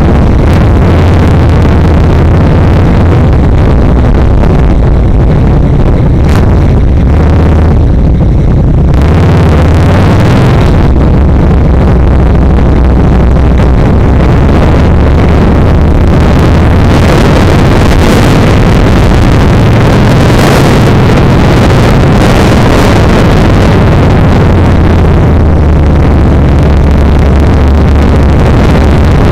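Yamaha XVS1300 V-twin motorcycle engine running on the move, its low note stronger in the first nine seconds and again near the end, under a heavy rush of wind.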